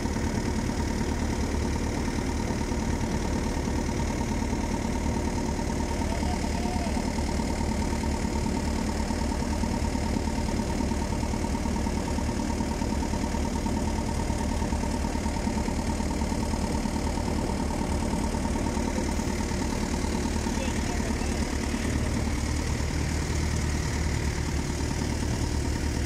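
A fishing boat's engine running steadily, a constant drone that holds at the same pitch and level throughout.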